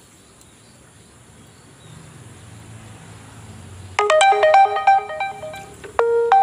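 A quick electronic melody of short beeping notes, ringtone-style, starts about four seconds in and plays loudly.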